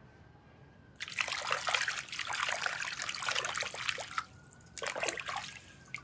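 Water trickling and splashing in two stretches: one of about three seconds starting a second in, then a shorter one near the end.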